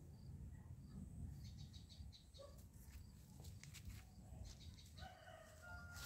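Faint farmyard ambience over a low rumble: small birds chirping repeatedly, and near the end a distant rooster crowing in one drawn-out call.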